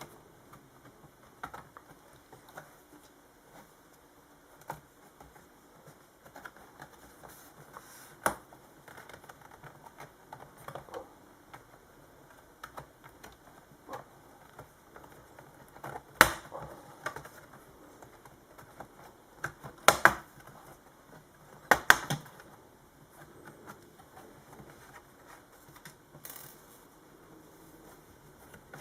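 Plastic bottom cover of a Toshiba Satellite S55t laptop being pried off: scattered light clicks and rattles as the case is worked loose, with several sharper snaps as its retaining clips let go.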